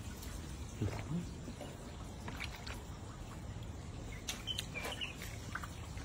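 Light splashing and dripping in shallow standing water as a hand and a plastic basket dip into it, over a steady low background rumble. A few short high chirps come around four to five seconds in.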